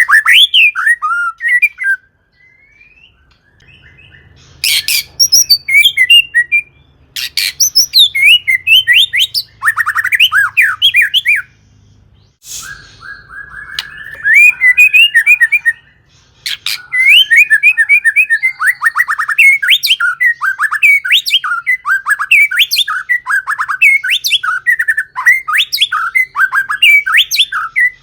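White-rumped shama (murai batu) singing a loud, fast, varied song of whistled and chattering phrases packed with borrowed notes, delivered in bursts with a few short pauses.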